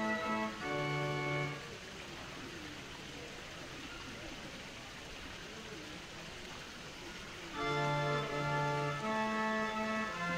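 Held pipe-organ notes and chords from the Villa d'Este's water-driven hydraulic organ. The playing stops about two seconds in, leaving a steady rush of water, and resumes with low held notes about eight seconds in.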